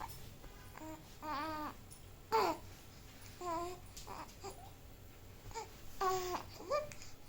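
Baby babbling: a string of short, high-pitched coos with pauses between them, the loudest a brief falling one about two and a half seconds in.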